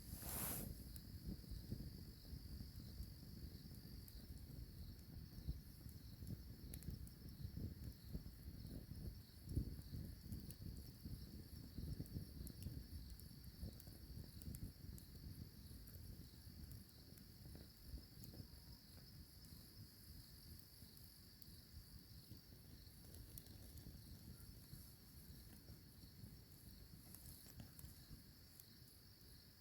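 Faint steady chirring of night insects, crickets, as one continuous high-pitched band, over a low irregular rumble with small knocks, the loudest about ten seconds in.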